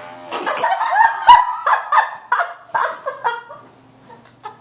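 Fart noises blown through a drinking straw: a string of short, honking blurts that stop about three seconds in.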